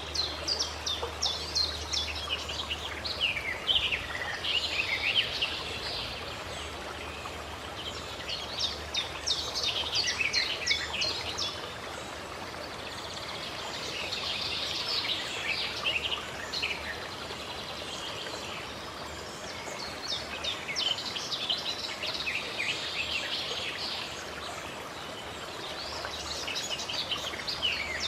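Wild birds singing and chirping, in clusters of quick high notes every few seconds, over a steady background hiss.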